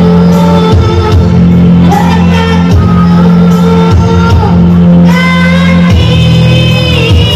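A girl singing into a handheld microphone over an amplified backing track of steady chords. She holds long notes, each a second or two, and her melody climbs higher about five seconds in.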